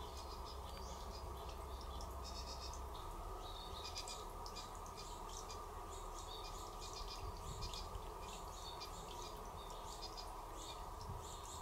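Natural ambience: small creatures give rapid, high chirps and buzzy trills again and again, over a steady low hiss.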